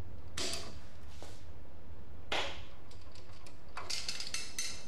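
Light metallic clicks and ticks of a spanner and sprocket-holding tool on the camshaft sprocket of a Ford 1.8 litre 16-valve DOHC engine, as the sprocket bolt is worked loose. Several scattered clicks, a few of them close together near the end, over a steady low hum.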